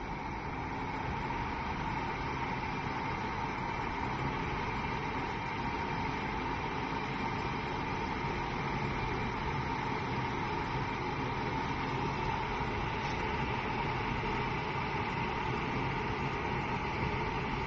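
Electric kettle heating water, not yet boiling: a steady rumbling hiss with a faint high hum, growing a little louder over the first couple of seconds.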